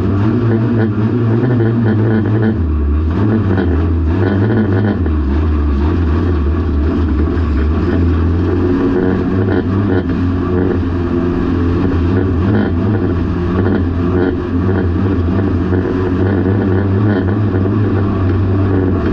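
Banger race car's engine heard from inside its stripped cabin while racing, the engine note rising and falling repeatedly as the driver goes on and off the throttle.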